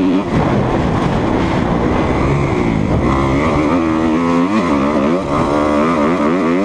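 Dirt bike engine pulling the bike along, its pitch rising and falling again and again as the rider rolls on and off the throttle, heard from a helmet-mounted camera.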